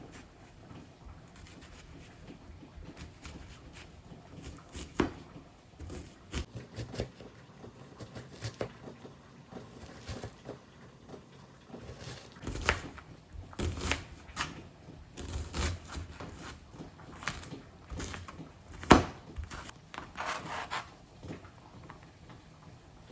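Kitchen food-prep handling sounds: scattered clicks, knocks and short rustles of utensils, packaging and food, busier in the second half, with one sharp knock late on.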